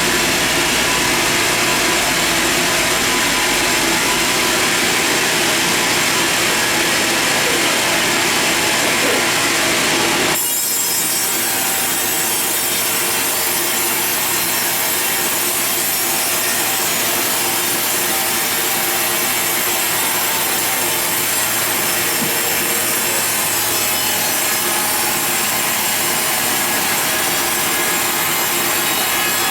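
Sawmill saw cutting steadily through a log, a continuous loud sawing noise with a machine whine under it; the sound shifts abruptly about ten seconds in, then carries on steadily.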